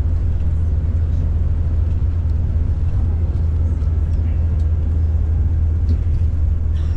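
Steady low rumble of a tour coach driving at road speed, engine and road noise heard from inside the passenger cabin.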